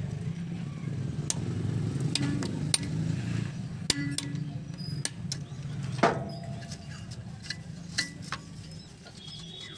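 A screwdriver and hands clinking against the metal of a JCB fuel filter housing: a scattered series of sharp metallic clicks and taps, the loudest about six seconds in, over a steady low hum.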